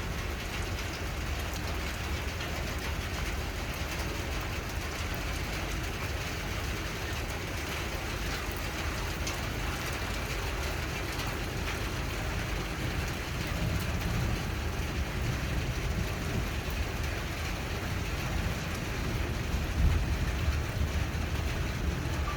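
Rain falling steadily, an even hiss with a constant low rumble underneath, swelling slightly a couple of times.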